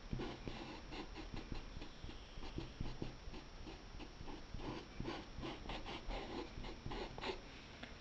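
Paintbrush rubbing and dabbing sepia paint into fabric in quick, irregular scratchy strokes, faint, stopping about a second before the end.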